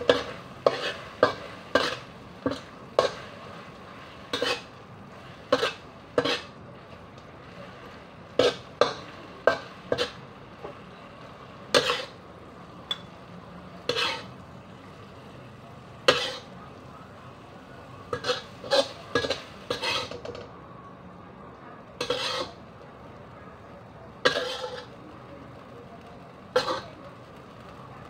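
Metal spatula scraping and clacking against a wok while stirring okra and scooping it out onto a plate, in short irregular strikes.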